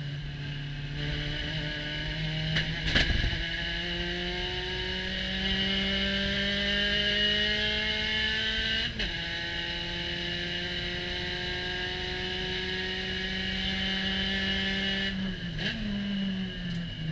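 Onboard sound of a Spec Racer Ford Gen3's four-cylinder engine at full throttle in third gear, its note rising slowly as the car gathers speed, with wind rushing past the open cockpit. There are two sharp knocks about three seconds in, and the engine note falls near the end as the throttle comes off for braking.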